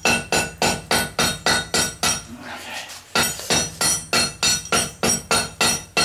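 Hand hammer striking a glowing billet of bicycle spokes and chain on an anvil in rapid ringing blows, about five a second, with a pause of about a second in the middle: forge welding the layers together at welding heat.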